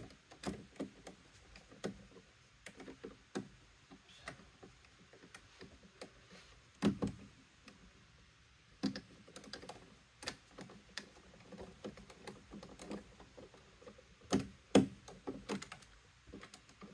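Irregular small clicks and taps of a screwdriver and screws against the plastic cover of a GM truck's windshield wiper motor as the cover is fastened back on, with a few louder knocks about 7 and 9 seconds in and around 14 to 15 seconds in.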